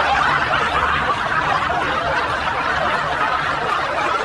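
Several people laughing together in a dense stretch of overlapping laughter that cuts off abruptly at the end.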